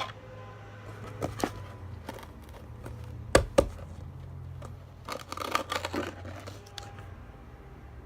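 Hands handling slime-making containers and packaging: scattered clicks and knocks, a sharp knock about three and a half seconds in, and a crinkling rustle around five seconds in, over a low steady hum.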